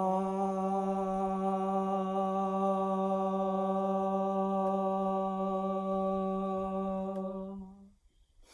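A voice holds one long, steady-pitched "haaa", the Qi Gong healing sound for the heart, for about eight seconds. It fades out near the end.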